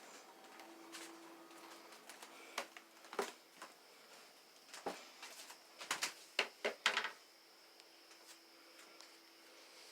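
A series of sharp clicks and knocks, a few scattered and then a quick cluster about six to seven seconds in, over a faint steady hum and high whine.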